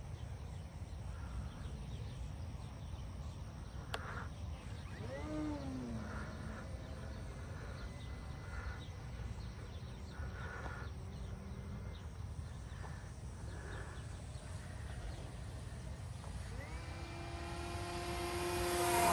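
Electric RC airplane flying, its brushless motor and 15x7 wooden prop making a whine that rises and falls in pitch as it passes. It passes about five seconds in, then approaches louder near the end, the pitch dropping as it goes by.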